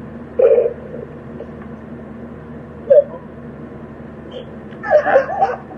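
Short non-speech vocal sounds from a person: two brief ones, then a longer run of them near the end, over a steady low hum.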